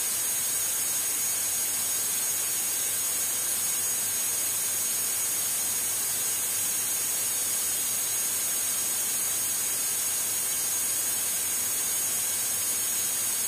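Steady hiss with a thin, constant high whine: cockpit noise of a Diamond DA42 twin-diesel aircraft climbing at climb power.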